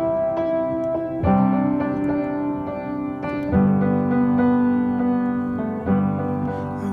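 Background music: a piano playing sustained chords, with a new chord struck about every two seconds.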